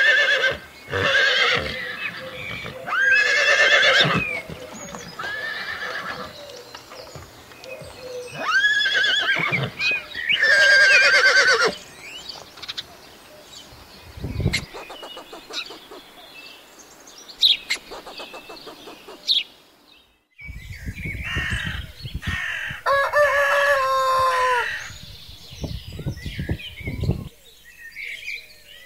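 Horses neighing and whinnying loudly several times in the first dozen seconds, followed by chickens clucking and chirping. A rooster crows once, about two-thirds of the way through, over low knocks.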